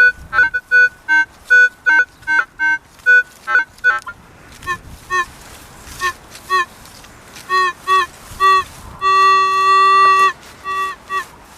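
Minelab CTX 3030 metal detector sounding target tones as the coil sweeps over a buried target: quick beeps jumping between a high and a low pitch, then short repeated beeps, then a long held tone about nine seconds in and again near the end, the strong repeatable signal of a target.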